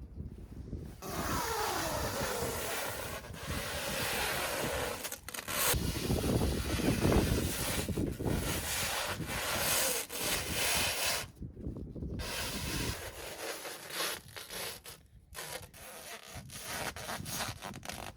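Irregular rubbing and scraping noises from hands-on work, stopping and starting, with a few short breaks.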